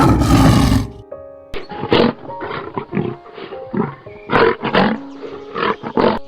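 A lion roaring: one loud roar in the first second, then a run of shorter, quieter roars, over soft background music with held notes.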